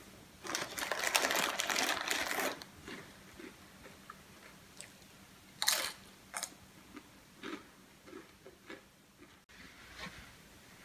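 A hand rummaging in a crinkly snack-chip bag for about two seconds. A few seconds later comes one sharp crunch of a tortilla chip being bitten, then a few fainter chewing crunches.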